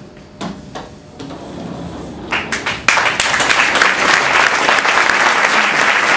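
Audience applause: a few scattered sharp strikes at first, swelling into full, loud applause about three seconds in.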